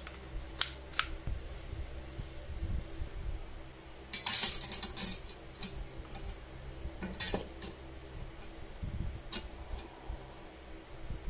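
Steel parts being handled and set down on a grinder cutting stand: scattered metal clinks and clatter. The loudest rattle comes about four seconds in, with another sharp knock about seven seconds in.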